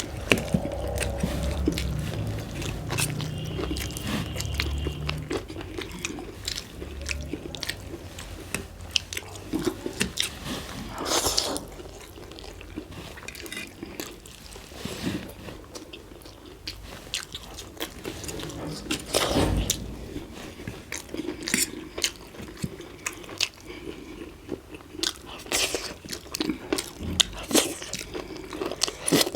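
People chewing and biting into sauce-covered chicken momo dumplings, wet mouth noises with many small clicks and a few louder noisy moments.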